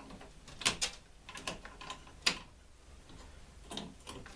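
A handful of separate light clicks and knocks from an old wooden fuse case and its porcelain fuses being handled, the loudest about two seconds in.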